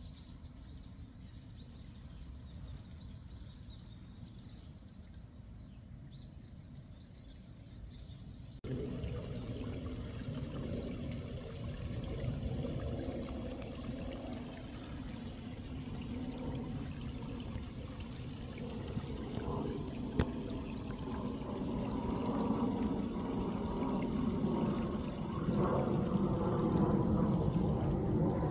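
Quiet outdoor ambience, then after an abrupt cut about a third of the way in, water pouring and trickling, growing steadily louder.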